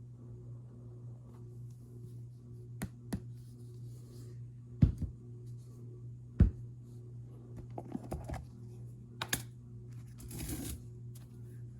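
Squeaky powder, such as cornstarch, being pressed and rubbed by hand, giving short, crunchy, scratchy crackles, with two sharp knocks about five and six and a half seconds in. A steady low hum runs underneath.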